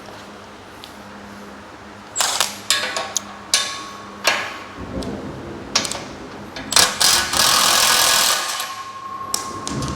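Steel parts of a galvanized power rack being handled and taken off: a run of sharp metal clanks and knocks starting about two seconds in, with a longer scraping rattle near the end.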